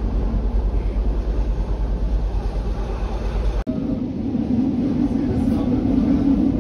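Passenger train running, heard from inside the carriage: a steady rumble. A little past halfway through it changes abruptly to a harsher, noisier running sound.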